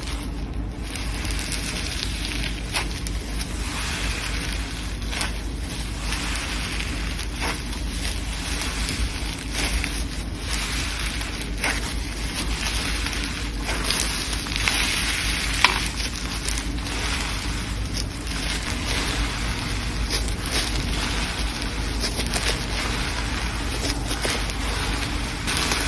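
Slime being squeezed and worked by hand, with many small crackles and pops over a steady low rumble, and one sharper pop about two-thirds of the way through.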